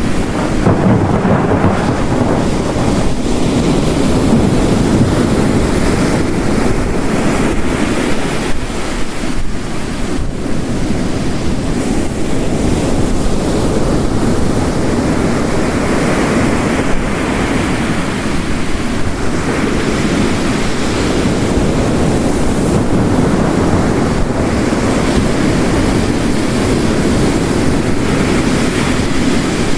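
Mixed storm ambience: heavy rain and ocean surf breaking in slow swells, with thunder rumbling in the distance.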